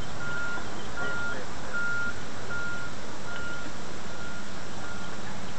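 A vehicle's reversing alarm beeping, a single high tone repeating evenly about every 0.8 seconds, over a steady background hiss.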